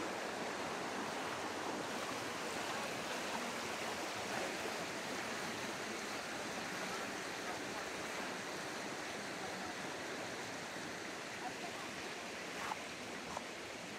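Steady rush of a flowing river, easing off slightly toward the end, with a few faint clicks near the end.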